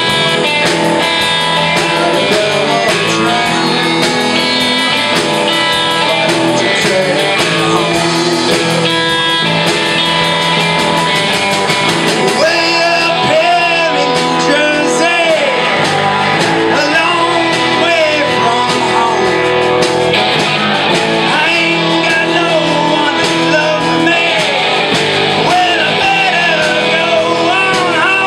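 Live band playing a blues-rock number on electric guitars and a drum kit, steady and loud throughout. From about halfway the lead guitar bends notes over the band.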